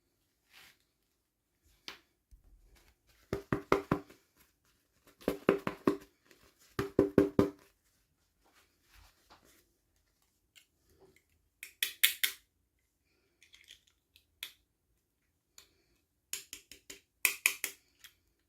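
Small plastic toy pieces and packaging being handled: short clusters of rapid taps and clicks. The three loudest come in the first half with a hollow knock, and sharper, higher clicks follow near the end.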